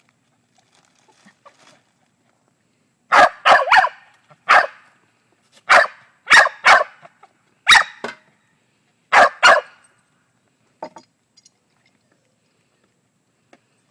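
Small dog barking: about ten sharp barks in quick clusters, starting a few seconds in and stopping well before the end.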